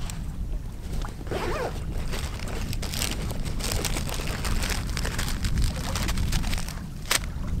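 Wind buffeting the microphone in a steady low rumble, over rustling and clicks of camp gear and food packets being handled and pulled from a nylon stuff sack.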